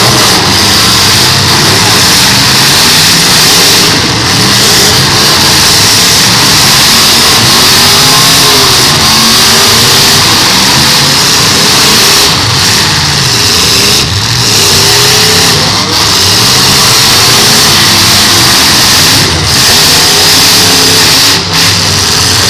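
Several full-size demolition derby cars' engines revving hard at once, their pitches rising and falling over one another in a loud, continuous din.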